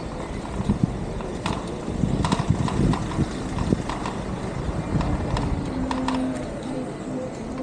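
Wind rumbling on the microphone during a bicycle ride, with irregular clicks and knocks. A steady low tone comes in about five and a half seconds in.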